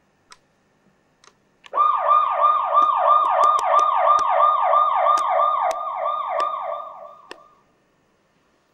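A siren-like warbling tone. Each note jumps up sharply and slides back down, repeating evenly about four times a second. It starts a little under two seconds in and fades out about seven seconds in, with a few sharp clicks scattered over it.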